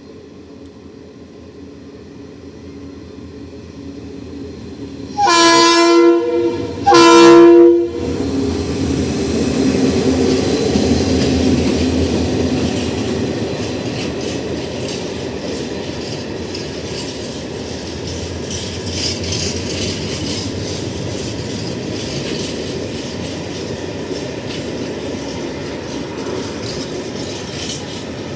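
Train approaching with a building rumble, then its horn blasting twice in quick succession, loud, a chord of several notes. The train then passes close by, its wheels clicking over the rail joints as the cars go by.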